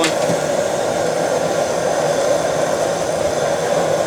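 Steady rushing noise of the fire under a keg boiling pot that is at a rolling boil.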